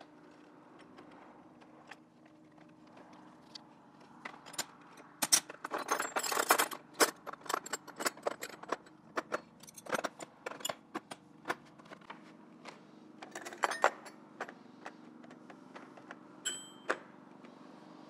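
Chrome-plated steel combination wrenches clinking and jangling against each other and the plastic case as they are handled. The clinking comes in bunches about five to seven seconds in and again around thirteen seconds, with scattered clicks between, and a brief metallic ring near the end.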